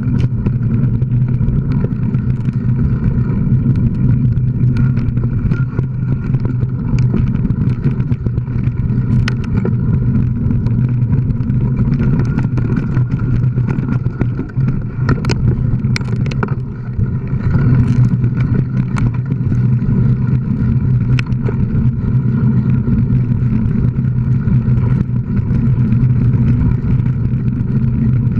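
Steady rumble and wind noise on a moving action camera riding along a sandy dirt singletrack, with scattered sharp knocks and rattles from bumps in the trail.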